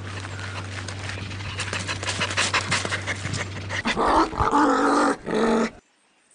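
A dog panting over a low steady hum, then three short pitched dog calls from about four seconds in that stop abruptly.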